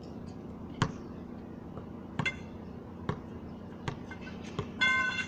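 A basketball bouncing on a concrete court: about six single, hard knocks, irregularly spaced about a second apart, the loudest about a second in. Near the end comes a brief high-pitched tone.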